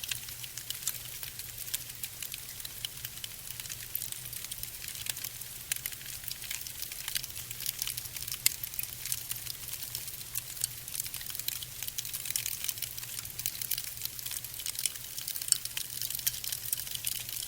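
Fire burning with dense, irregular crackling over a steady low hum.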